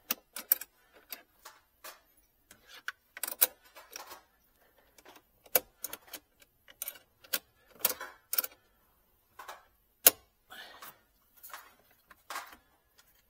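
Irregular sharp clicks, taps and small knocks of hands unclipping a car battery's vent hose and handling the fittings around the battery, with one louder click about ten seconds in.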